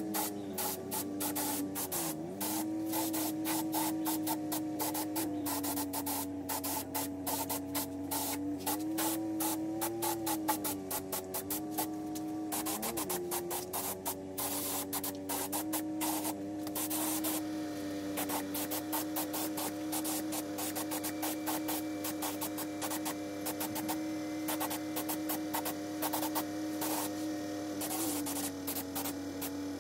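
Samurai aerosol spray paint can hissing in many short bursts as black paint is sprayed onto a wheel rim, over a steady low hum that wavers in pitch now and then.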